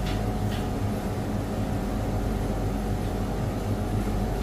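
Steady low mechanical hum of commercial kitchen machinery, with a couple of faint light clicks near the start.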